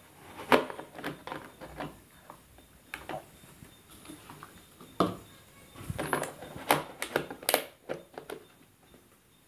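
Hard plastic parts of a star projector night lamp being handled and fitted together: scattered clicks and knocks, the loudest about half a second in and several more in the second half.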